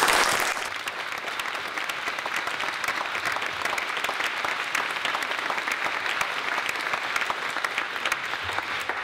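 Audience applauding: many people clapping, loudest at the start and then steady.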